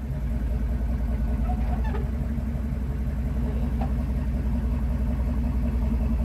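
Wrecker tow truck's engine running steadily as the truck creeps forward under load, a low rumble that comes up sharply at the start.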